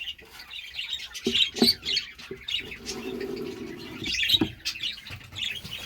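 Budgerigars chirping and chattering in quick, scattered calls, with a few short knocks along the way.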